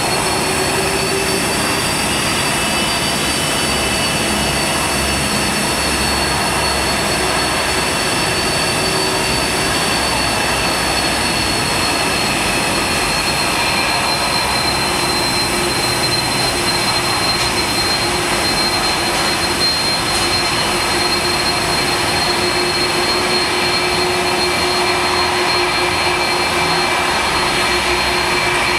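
Jet airliner engines idling on the apron: a steady high whine over a broad rumble. The whine drifts slightly lower over the first dozen seconds.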